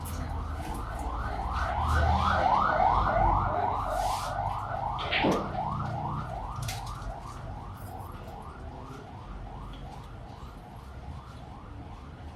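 Electronic siren or alarm yelping, a quick rising sweep repeated about three times a second, fading away toward the end. A sharp click comes about four seconds in.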